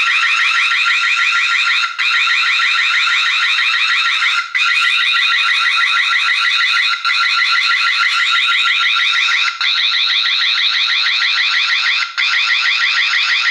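TP-Link Tapo D230S1 video doorbell's anti-theft alarm sounding: a loud, continuous, high-pitched electronic siren with a rapid warble, broken by short gaps about every two and a half seconds. The alarm is set off by the doorbell being removed from its mount.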